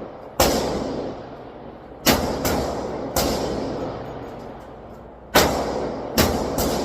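Glock 20 pistol firing 10mm rounds: seven shots at uneven intervals, two of them close together, each trailing off in a long echo.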